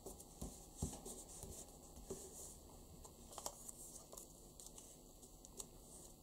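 Faint rustling and scattered soft taps and clicks of paper being folded and pressed by hand against a wooden tabletop.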